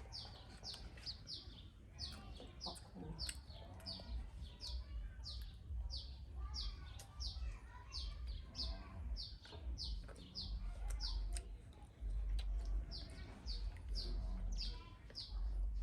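A small bird calling: short high chirps, each dropping in pitch, repeated steadily about twice a second, over a low rumble that grows stronger in the last few seconds.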